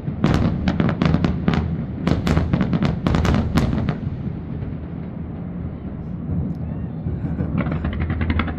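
Fireworks display: a rapid barrage of aerial shell bursts and bangs, which stops about four seconds in and leaves a low rumble.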